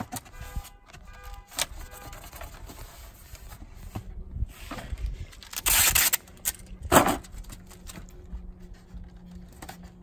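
Packing tape pulled off the roll of a hand-held tape dispenser: a loud rip a little before six seconds in, then a short sharp tearing sound about a second later as the tape is cut. Light rustling and clicking of tape and foam-board handling around it.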